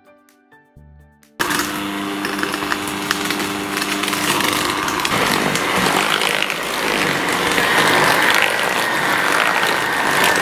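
Electric hand mixer running, its beaters whirring through thick cake batter. It starts suddenly about a second and a half in, after quiet plucked music, and its tone shifts about halfway through.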